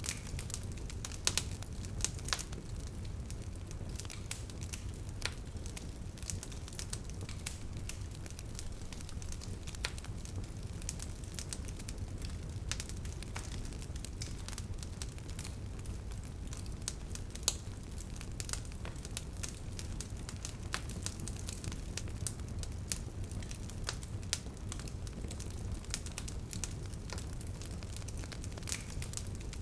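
Wood fire crackling: irregular, frequent crackles and pops, a few of them louder, over a steady low noise of the burning flames.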